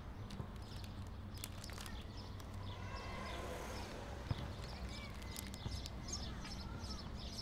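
Outdoor street ambience: a steady low hum with scattered taps and clicks, and small birds chirping in short repeated bursts, mostly in the second half.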